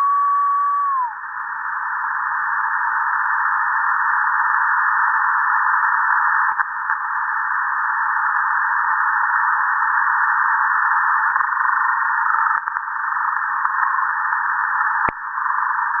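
Shortwave radio static heard through a web-based SDR receiver tuned to 6660 kHz in lower sideband with a narrow filter: a steady band-limited hiss. A thin whistling tone is held at first, then drops and fades about a second in. There is a single sharp click near the end.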